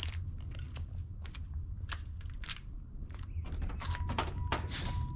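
Footsteps crunching on gritty pavement, then about four seconds in the car door opens and a steady electronic warning chime starts to sound.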